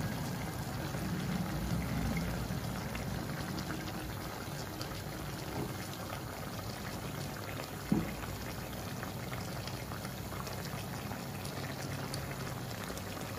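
Conger eel adobo simmering in a wide stainless steel pan: the soy and vinegar sauce bubbles and crackles steadily. One sharp click about eight seconds in.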